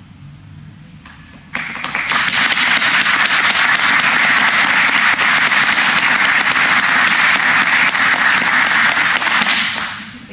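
A group of seated aikido students applauding. The applause starts suddenly about a second and a half in, holds steady and fades out near the end.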